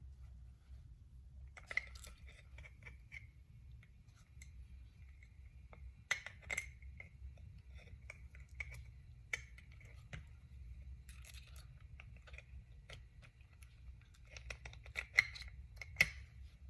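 Small metal parts of an Andis Master hair clipper clicking and clinking as they are handled and fitted, in irregular light taps with a faint ring; the two sharpest clicks come near the end. A steady low hum runs underneath.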